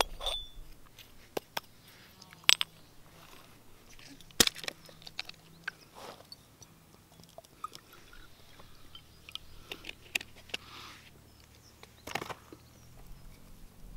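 Sporadic sharp clicks and knocks of camp gear being handled, a dozen or so separate taps with quiet stretches between them.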